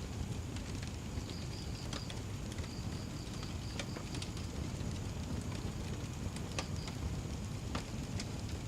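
Wood fire crackling: sharp pops and snaps scattered over a steady low rumble. A few runs of high, pulsed chirping come and go now and then.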